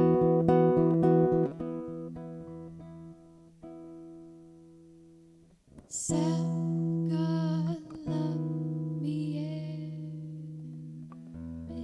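Solo acoustic guitar fingerpicked, its notes ringing out and fading almost to silence. About six seconds in, a woman's voice starts singing over sustained guitar chords.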